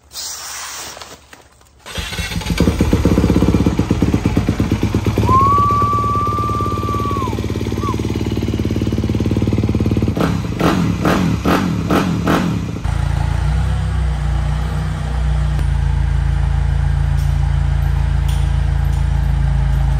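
Honda 250 four-stroke single-cylinder dirt bike engine running loud through a freshly fitted Yoshimura full exhaust system with an RS-12 muffler, starting about two seconds in. About two-thirds of the way through, the sound switches abruptly to a steadier, deeper engine drone.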